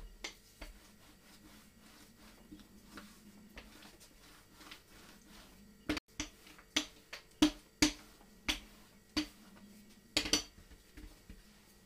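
Cake dough being flattened and rolled on a floured silicone mat: soft pats of hands on the dough, then a rolling pin knocking sharply at each back-and-forth stroke, about two a second, for the second half.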